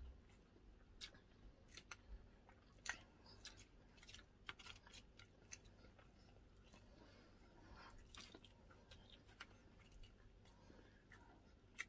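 Faint chewing and eating: soft, irregular mouth clicks and smacks, with an occasional slight crunch.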